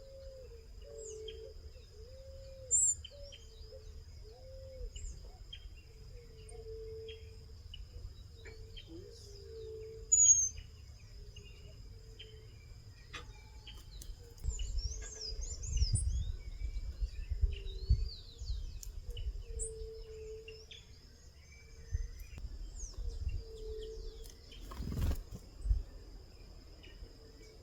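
Backyard birds chirping and calling in many short high notes, with two louder calls about 3 and 10 seconds in. Under them runs a steady high-pitched hum and a low hooting call repeated about once a second, and some low rumbling thumps come in the second half.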